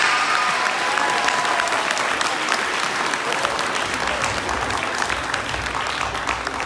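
Audience applauding, many hands clapping, slowly dying down.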